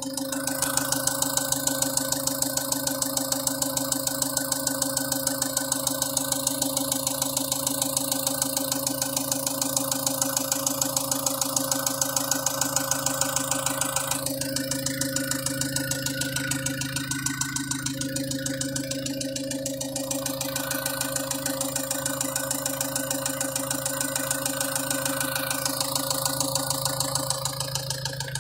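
Opel Vivaro's 1.9 dCi F9Q four-cylinder diesel idling warm with a fast, even knock, the knock that the owner says it has once warmed up.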